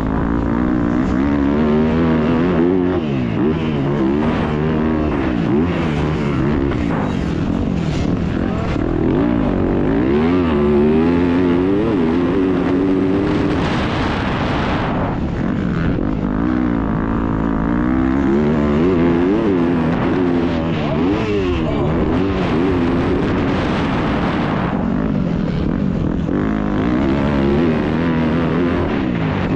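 Motocross bike engine revving hard and easing off over and over as it is ridden round a race track, the pitch climbing and dropping every couple of seconds through the gears, heard from a helmet-mounted camera.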